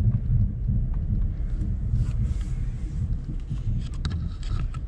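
Holden VE Commodore ute driving, heard from inside the cabin: a steady low engine and road rumble, with a few light ticks in the last second.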